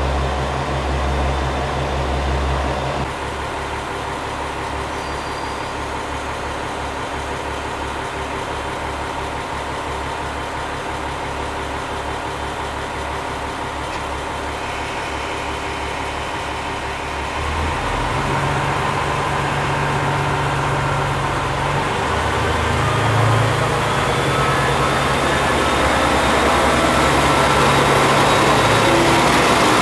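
JR KiHa 47 diesel railcars idling, with the engine note changing about three seconds in. Past the middle the engine throttles up and gets louder as the train pulls out, and a faint rising whine builds as it gathers speed past the platform.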